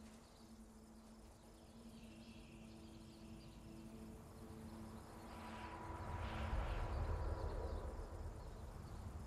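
Outdoor ambience of wind with insects chirping, over a faint steady low tone. About five and a half seconds in, the wind swells into a rumbling gust that eases off near the end.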